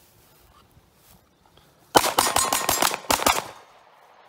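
Star Model BM 9mm semi-automatic pistol fired in a rapid string of about eight shots, starting about two seconds in and lasting about a second and a half.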